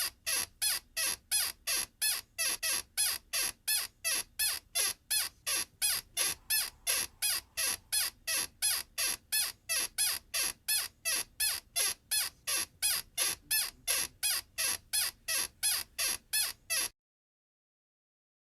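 A high-pitched squeak repeating evenly, about three times a second, then cutting off suddenly near the end, followed by silence.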